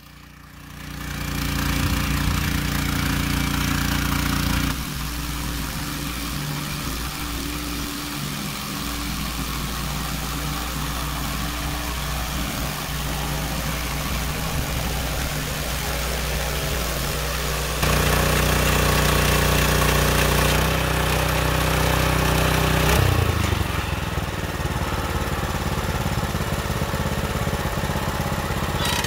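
Small engine of a portable band sawmill running steadily. It gets louder and harsher about 18 seconds in and eases back about five seconds later.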